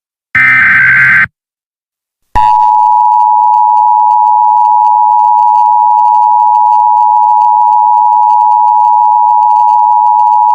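Emergency Alert System broadcast signal: one short burst of screeching SAME header data, then after about a second of silence the steady two-tone EAS attention signal (853 and 960 Hz) starts about two seconds in and holds unbroken. It is the alert that precedes a spoken civil emergency message.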